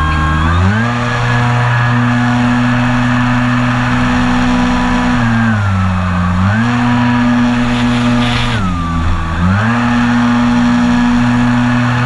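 Engine of a radio-controlled model airplane in flight, opened up to high throttle just under a second in, then throttled back twice, around the middle and again later, and brought back up each time.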